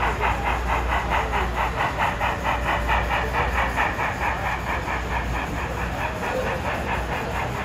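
Sound-equipped HO-scale model of Strasburg Rail Road steam locomotive No. 90, a 2-10-0, playing a steady rapid exhaust chuff of about six or seven beats a second as it runs. The chuffing grows a little softer over the last couple of seconds.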